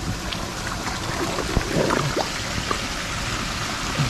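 Shallow water sloshing and trickling, with a few small splashes near the middle.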